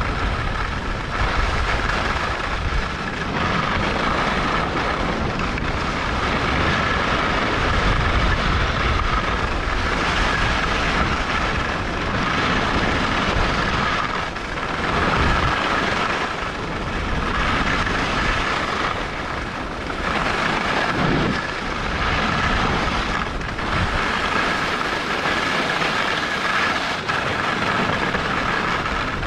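Skis sliding and scraping over packed snow during a downhill run, with wind buffeting the microphone; the hiss swells and eases with each turn.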